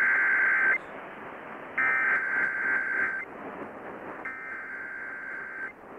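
EAS SAME header: three loud bursts of digital data tone, each about a second and a half long and about a second apart, the first already under way. Radio hiss fills the gaps. The header opens a new National Weather Service flash flood warning.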